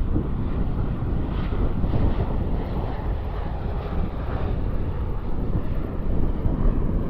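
Boeing 737-900 airliner's CFM56 turbofan engines heard during landing: a steady jet rumble, heaviest in the low end.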